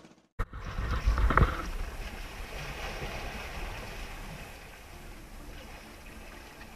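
Wind buffeting the microphone over the wash of the sea on an outrigger fishing boat. About a second in there is a brief loud low rumble with a knock, and then a steady hiss of wind and water.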